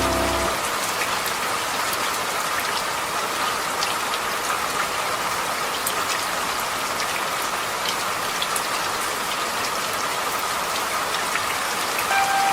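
Steady rain falling, an even hiss with scattered sharp drip ticks. Soft music notes die away about half a second in and return near the end.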